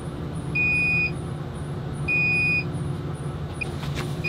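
Electronic warning beeper in a motorhome cab giving two half-second beeps about a second and a half apart, with a short blip near the end, over a steady low engine hum.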